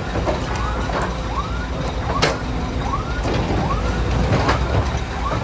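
Heavy diesel construction machinery (excavators and trucks) running with a steady low rumble, with a few sharp metallic knocks and a short rising squeal repeating roughly every half second to second.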